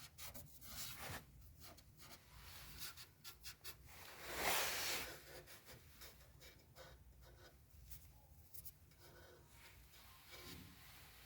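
Faint clicks and light rubbing of small parts being worked by hand, with one louder scraping stroke about four seconds in.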